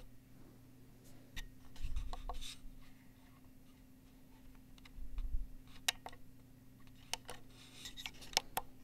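Fingertips rubbing, scratching and tapping on the body of a Tascam DP-006 recorder close to its built-in microphones. There are scattered sharp clicks and soft rubbing, with two dull low handling bumps about two and five seconds in.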